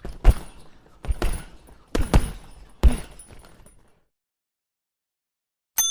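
Boxing gloves punching a heavy bag, several heavy thuds in quick pairs over about three seconds, then silence. Near the end a single ringing strike of a boxing bell.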